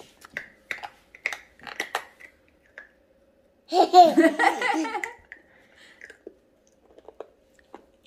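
A burst of giggling laughter lasting about a second and a half, a little before the middle, after a few short clicks and mouth smacks.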